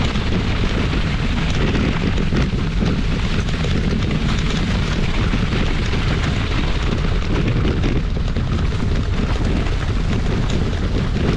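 Wind buffeting the microphone of a camera carried on a moving bike: a loud, steady low rumble and hiss, with scattered small knocks and rattles.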